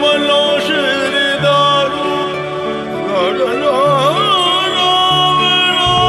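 Background music from a TV drama score: held notes over a low bass line that changes note several times, with a wavering, ornamented melody in the middle that settles into a long held tone near the end.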